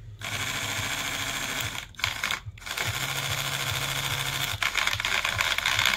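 Small electric motor and gearbox of a homemade toy RC tractor running with a rapid, rattling whir, cutting out briefly twice about two seconds in. The gearbox is broken again.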